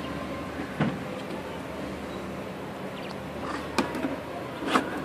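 Three sharp knocks of a red plastic slatted lid bumping against a plastic bucket as it is put on, the last the loudest, over steady background noise.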